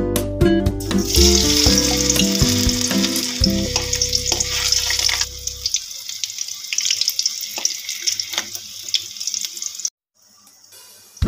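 Pieces of raw banana sizzling and crackling in hot oil in a steel pan, a steady high hiss that starts about a second in. Guitar background music plays over the first half and stops about halfway, leaving the sizzle alone, which cuts off shortly before the end.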